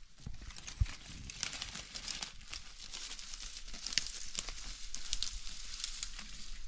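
Footsteps through dry grass and brush, with scattered crackling and rustling of dry grass stems.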